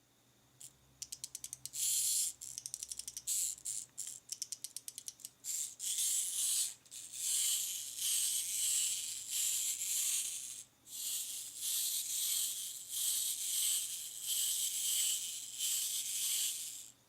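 Clockwork wind-up walking figure of Howl's Moving Castle: a few seconds of rapid ratchet clicks from winding, then its gear train running with a dense high-pitched whirring clatter that swells and dips about once a second as it walks, stopping abruptly near the end.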